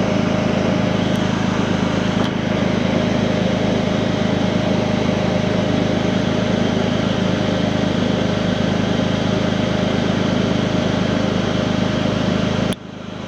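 2008 Smart car's three-cylinder engine idling with the air conditioning on, giving a steady hum and whir, while refrigerant is being added through the low-side port. The sound drops out briefly just before the end.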